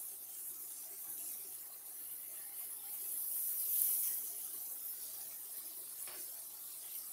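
Scallops searing in hot oil in a stainless steel skillet: a steady sizzle that swells briefly about four seconds in.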